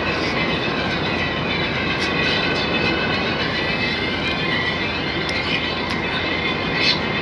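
Heavy rain falling steadily, a dense, even hiss of a downpour with a few sharp ticks in it.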